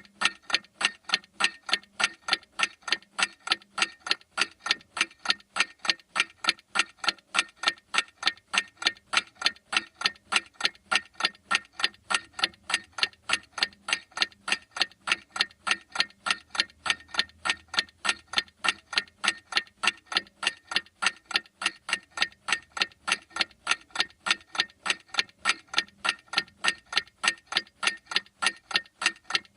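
A clock ticking in a fast, perfectly even rhythm of several sharp ticks a second, each tick at the same strength.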